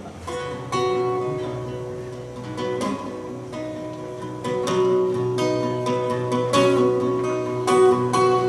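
Acoustic guitar playing an instrumental passage, with picked notes and strummed chords ringing on.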